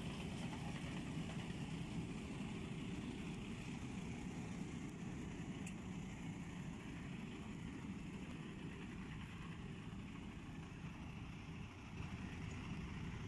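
Diesel engines of a Vögele Super 1900-3 asphalt paver and a tipper truck running steadily at idle while the truck tips asphalt into the paver's hopper.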